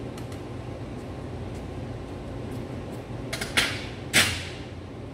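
A pair of heavy dumbbells set down after a set, a few light knocks followed by two loud metal clanks about half a second apart.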